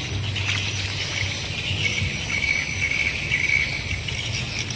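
Insects chirping in a steady high-pitched chorus that swells and fades in short stretches, over a steady low rumble.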